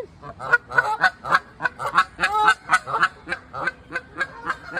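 Two pairs of geese honking back and forth at each other, a rapid run of short honks, about four or five a second, that sounds like arguing.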